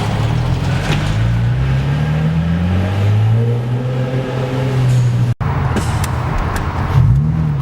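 Car engine pulling under acceleration, its pitch climbing over a few seconds and then holding steady. The sound cuts out for an instant about five seconds in, and near the end there is a quick rev that rises and falls.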